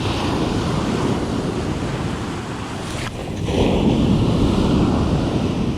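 Ocean surf breaking and washing up on a sandy beach, with wind buffeting the microphone. A wave breaks louder about halfway through.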